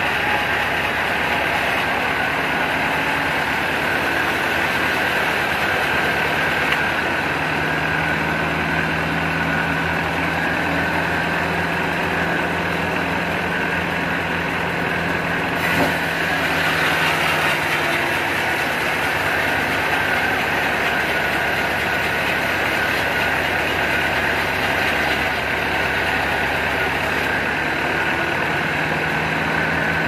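Vertical band sawmill running steadily as its blade saws through a large log. A low hum comes in about seven seconds in, drops out around eighteen seconds and returns near the end.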